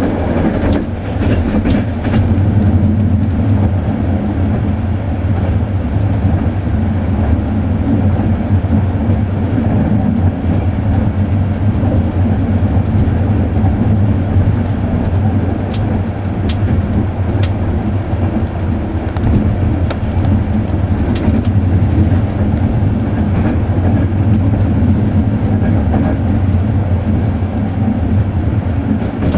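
Passenger train running along the track, heard from on board: a steady low rumble of wheels on rail with a few scattered clicks.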